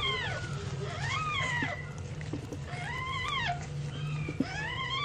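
Newborn kitten mewing: four high, thin cries, each rising then falling in pitch, about one every second and a half, over a low steady hum.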